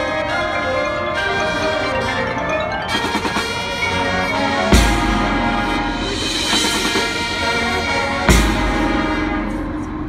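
High school marching band playing its field show: sustained band chords with the front ensemble's marimbas and mallet percussion. Two loud full-band hits land about five and eight seconds in, each followed by ringing.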